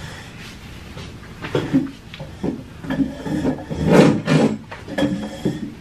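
Irregular wooden knocks, scrapes and rubbing as a person gets up from the table and the chair shifts, the loudest about four seconds in.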